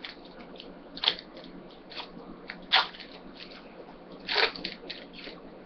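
Trading-card pack wrappers and cards being handled: four or five short, sharp crinkles and crackles, the loudest near the middle and about two-thirds of the way in.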